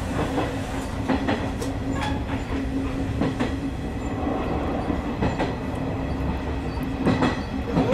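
Electric train running along the track, heard from inside the cab: a steady low rumble with a steady hum and irregular clicks of the wheels over rail joints.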